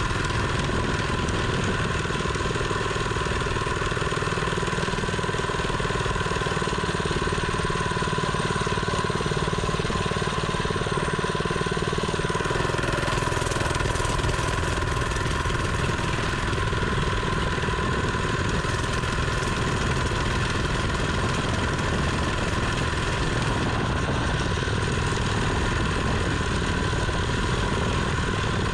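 Mini bike's small engine running steadily at an even speed.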